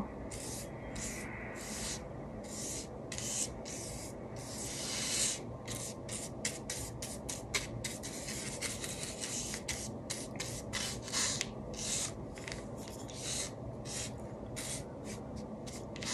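A paintbrush scratching across paper in many short, irregular strokes, some longer than others.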